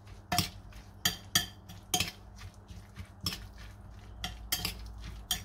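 Metal spoon clinking and scraping against a ceramic bowl while stirring a rice, tomato and parsley salad: irregular short clinks, one or two a second.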